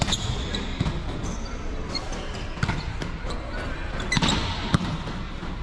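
Volleyball being struck and bouncing on the court floor, several sharp hits with the loudest about four seconds in, echoing in a large indoor gym.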